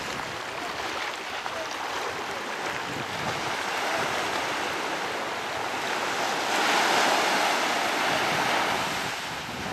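Small sea waves breaking and washing up onto a sandy beach, with one wave running up louder about two-thirds of the way through.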